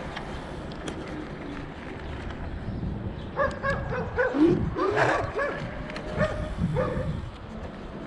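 A dog barking, a run of short barks starting a little past the middle, over a steady low rumble of wind noise.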